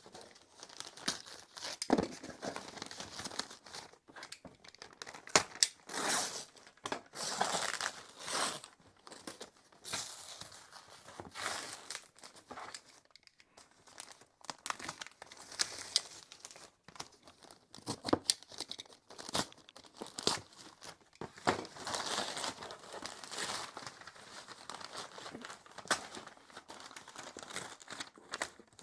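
Thick packing tape being pulled and torn off a cardboard box, with packaging crinkling and rustling in irregular bursts. A single thump about two seconds in.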